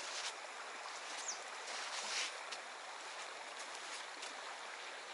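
Mountain river water rushing steadily, with a few brief sharp ticks and swishes on top.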